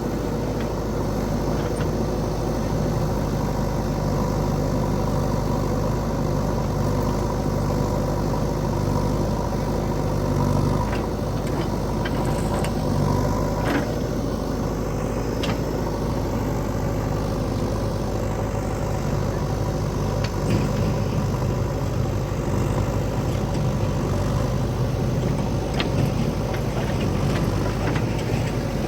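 Diesel engine of a JCB 3DX backhoe loader running steadily, with a few short clanks now and then.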